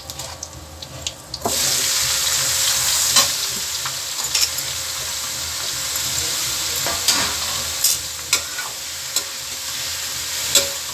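Hot oil in a pan suddenly bursts into loud, steady sizzling about a second and a half in, as chopped bottle gourd goes into the tempered oil. A metal spatula clinks against the pan several times as the vegetable is stirred.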